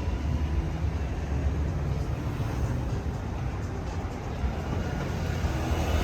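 Steady low rumble of a vehicle on the move, with an even haze of road noise.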